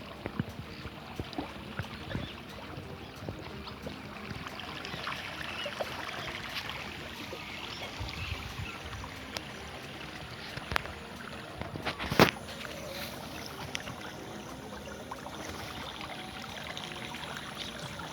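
River water flowing steadily, with scattered small clicks and one sharp knock about twelve seconds in.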